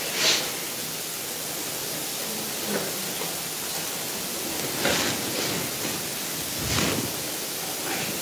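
Steady hiss of room tone with no speech, broken by three brief soft noises, the first just after the start and the others about five and seven seconds in.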